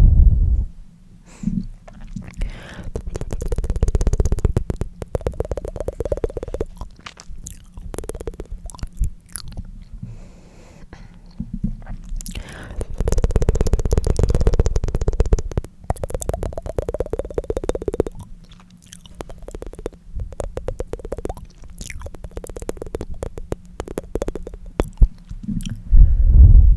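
Tongue fluttering: a mouth making fast runs of rapid tongue flaps and clicks, in bursts a few seconds long with short pauses between.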